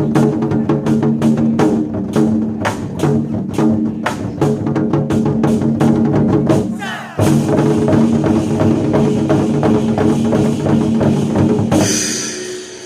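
Chinese war drums struck in a driving rhythm over a recorded music backing track, with a short break about seven seconds in; the piece ends in a bright crash near the end.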